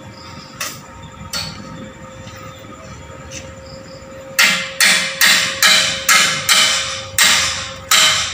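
Hammer striking a freshly welded steel bar: a couple of light knocks, then about halfway through a run of eight hard metal blows, about two a second, each ringing briefly.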